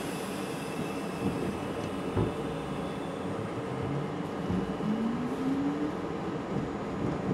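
R32 subway train running through a station, heard from inside the front car: a steady rumble of wheels on rail with a couple of knocks from the track, and a short rising whine about halfway through.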